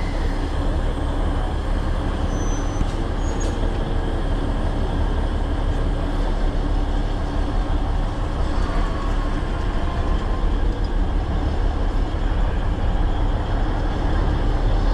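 Alishan Forest Railway passenger train running slowly, a steady low rumble of wheels on track and the train's machinery, heard through an open carriage window.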